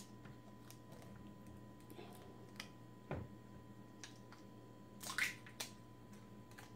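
Faint handling noises of peeling the seal off a new honey jar: scattered soft clicks, a sharper tick about three seconds in, and a brief crinkling tear about five seconds in.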